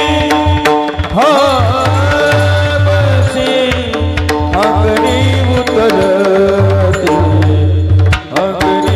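Marathi Varkari kirtan music: a singer's voice in long, gliding, ornamented notes over steady sustained tones, with a hand drum keeping the beat and light clicks.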